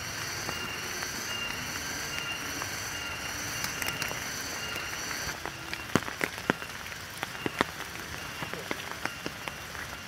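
Rain falling on foliage and plastic rain ponchos along a wet forest path: a steady patter, with sharp separate drips and taps in the second half. A high, rhythmic chirring runs through the first half and stops about halfway.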